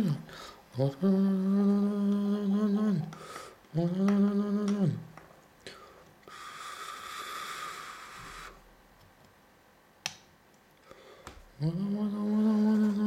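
A voice humming long held notes, three times, each note ending with a drop in pitch. Around the middle a soft hiss lasts about two seconds, and a single sharp click comes near the end.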